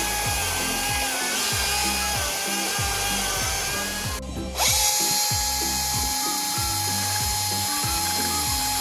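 Chainsaw running at full throttle, a steady whine as it cuts into a wood block; a little past the middle it drops briefly and revs straight back up. Background music plays underneath.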